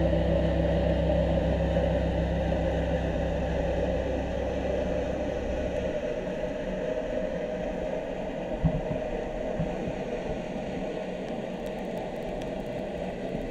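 Steady, muffled underwater noise from a camera in a waterproof housing, with a low rumble that drops away about six seconds in. A single knock comes near the nine-second mark.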